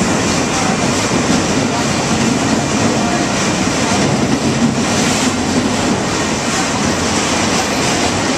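Freight train of autorack cars rolling past, a loud, steady rumble and rattle of steel wheels running over the rails.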